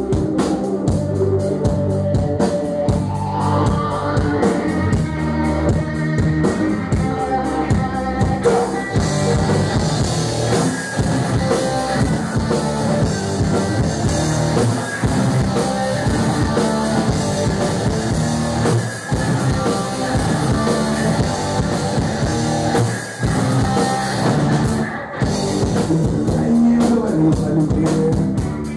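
A live rock band playing: electric guitar, bass guitar and a Sonor drum kit.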